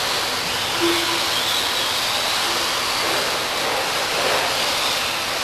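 Electric RC stadium trucks racing around a dirt track: a steady whir of small motors and tyres, with no single event standing out.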